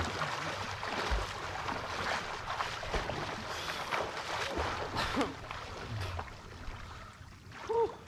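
Water splashing and sloshing as someone swims, with one short high-pitched call near the end.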